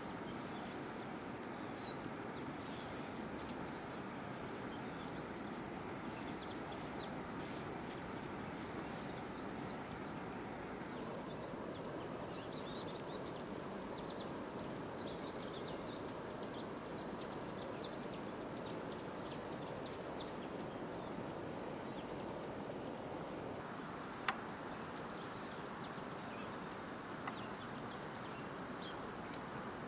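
Steady outdoor background noise with small birds chirping on and off throughout. A single sharp knock sounds about three-quarters of the way through, followed by a fainter click a few seconds later.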